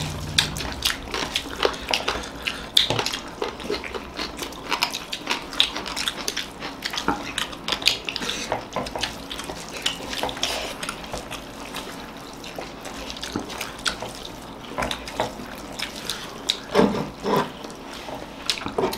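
Wet, squishy sounds of hands mixing rice with egg curry, with fingers scraping and tapping on plates and light clinks of dishes: a steady patter of many small clicks.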